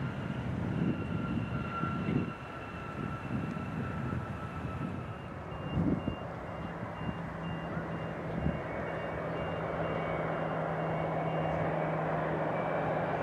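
Jet engines of a twin-engine regional airliner on approach, a steady low hum and rushing whine that grow steadily louder through the second half. Earlier, wind buffets the microphone over a distant jet's high whine, with a faint repeated beeping.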